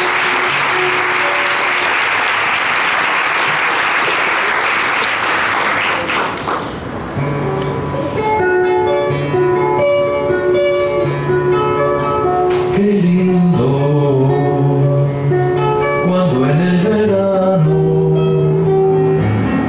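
Audience applauding for about six seconds, then a classical guitar playing a song's introduction alone. About two-thirds of the way in, a man's voice comes in singing low over the guitar.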